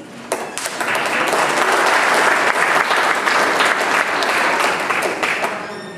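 Audience applauding: a few single claps at first, swelling into full applause within the first second, holding steady, then fading near the end.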